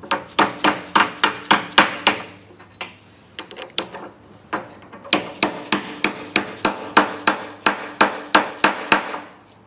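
Hammer tapping a brass punch to drive a tight-fitting steel pivot pin into a 1965 VW Beetle pedal cluster: quick, sharp metal taps at about three to four a second, in a short run, then a pause with a few lighter taps, then a longer steady run.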